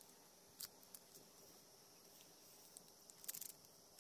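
Near silence, broken by a few faint clicks and crinkles of a small plastic packet being handled, with a quick cluster of crinkles a little after three seconds in.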